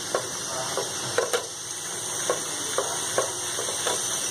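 Green chillies, onion, garlic and ginger sizzling in oil in a kadhai while being stirred with a spatula: a steady sizzle with irregular soft taps and scrapes of the spatula against the pan.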